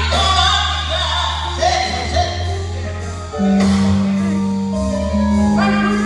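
Gospel singing with a live band, over long held bass notes.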